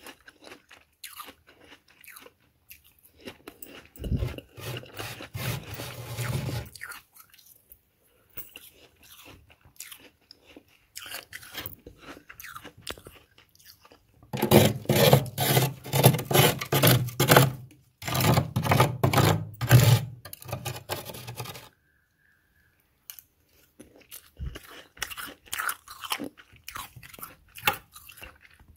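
Close-up crunching and chewing of freezer frost, with a metal spoon scraping frost from the freezer wall. The loudest, densest crunching comes from about halfway through and lasts about seven seconds, with quieter crackling around it.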